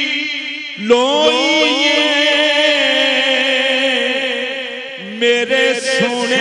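A man singing long, drawn-out notes with a wavering pitch, part of a Sufi devotional song in praise of Ali. A new phrase starts with an upward slide about a second in, and another about five seconds in.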